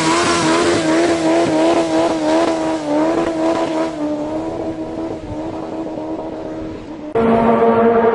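Motorcycle engine held at high revs, its pitch wavering slightly, then fading away over a few seconds. About seven seconds in it cuts abruptly to another engine running steadily at a lower pitch that slowly rises.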